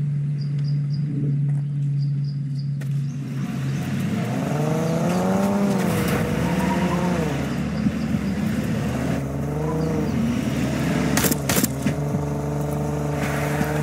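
Ford Super Duty pickup truck's engine, humming low at first, then revving up and down several times as the truck drives up. Two sharp knocks come near the end.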